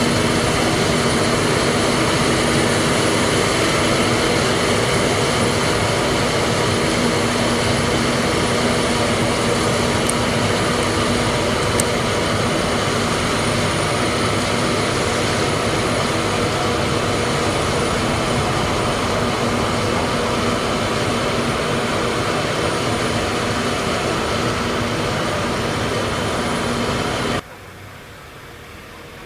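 Forage harvesting machinery running steadily while chopping corn for silage: a loud engine drone with a steady high whine over it. Near the end it cuts abruptly to a much quieter engine sound.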